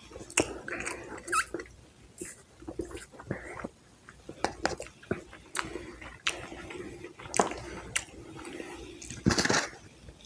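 Close-miked mouth sounds of eating and drinking: sipping from a fast-food cup, wet chewing, swallowing, and scattered lip smacks and clicks. A louder handling noise comes near the end as food is picked up.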